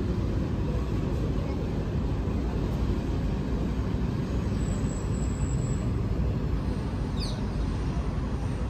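Steady low outdoor rumble, flickering quickly in level, with a brief high falling chirp about seven seconds in.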